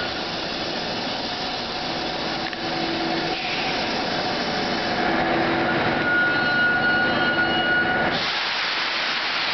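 Moscow metro track-measuring train moving through the station: a steady rumble and clatter of steel wheels on rail. A thin high whine comes in about halfway through, and the low rumble drops away near the end.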